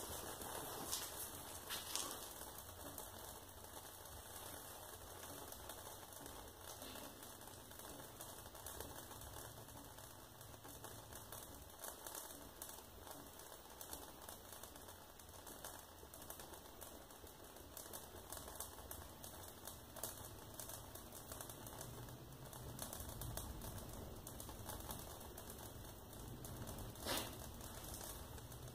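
Faint, irregular crackling of a wood-stove fire burning a disposable diaper on the logs, heard through the closed glass door, with a few louder pops, the loudest near the end.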